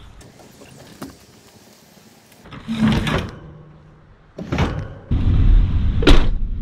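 A few clunks, then a truck door slamming shut about six seconds in, over a low rumble inside the cab.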